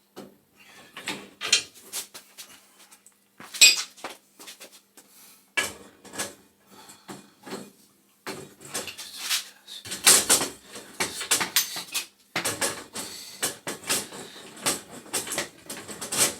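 Irregular metal clinks, clanks and scrapes of a wrench and gas pipe fittings being worked by hand while a pipe is fitted, sparse at first and busier through the second half.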